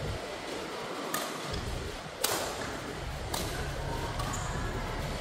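Badminton rally: racket strings striking the shuttlecock about once a second, four sharp hits with a short echo in a large hall, over a steady low background hum.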